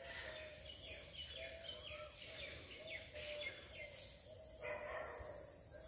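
Insects droning steadily at a high pitch, with birds chirping over it: quick falling chirps and a short low note repeated many times.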